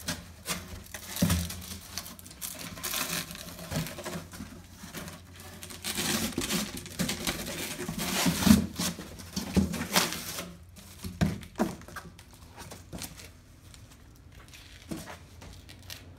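Corrugated cardboard boxes being broken down by hand: scraping, rustling and tearing of the cardboard as it is cut, bent open and folded flat, with several thumps as pieces knock against each other and the concrete floor. The handling is busiest over the first ten seconds and quieter near the end.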